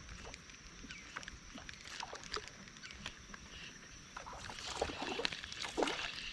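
Rain falling on the pond and the camera: scattered light ticks and drips at irregular intervals, growing a little busier and louder after about four and a half seconds.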